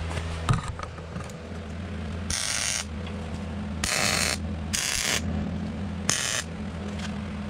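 MIG welder laying tack welds on a steel frame: four short bursts of crackling arc, each about half a second long, over a steady low hum.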